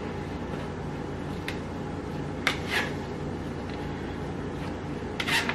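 Spoon scraping cooked penne out of a stainless steel pot into a metal baking pan: a handful of short scrapes and clinks of metal on metal, over a steady low hum.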